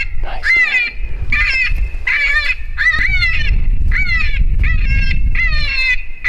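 Predator call playing an animal distress sound: a wavering, high-pitched cry repeated about twice a second without a break, over a low wind rumble on the microphone.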